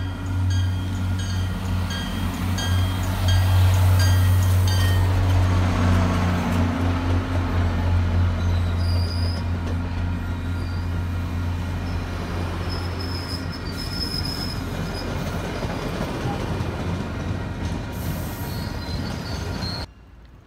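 A train running on the rails with a loud, steady low drone and brief high-pitched wheel squeals. It is loudest a few seconds in and cuts off suddenly just before the end.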